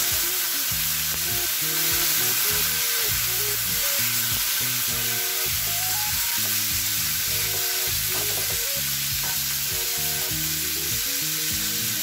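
Pressure-cooked mutton pieces sizzling steadily in hot oil in a frying pan as a spatula stirs them. Light background music with stepped melody notes plays underneath.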